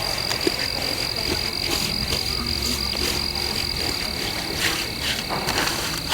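Chorus of frogs calling: a steady high-pitched trill with many short calls repeating over it.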